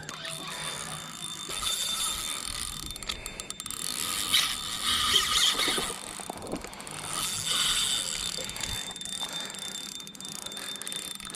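Fishing reel clicking and whirring while a hooked barramundi is fought on the line, with louder stretches about halfway through.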